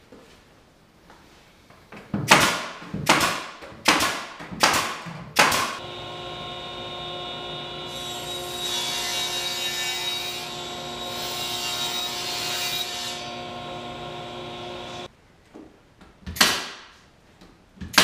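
Five sharp knocks on wood, then a power tool's motor running at a steady pitch for about nine seconds, with a harsher cutting noise through the middle as it works into the wood. It cuts off suddenly and is followed by another knock.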